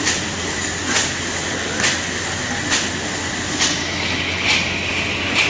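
Automatic paper boat tray forming machine running: a sharp mechanical clack repeats a little faster than once a second over a steady whirring clatter.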